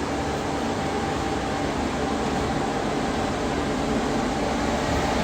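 A fan running steadily: an even whooshing hum with a few faint steady low tones.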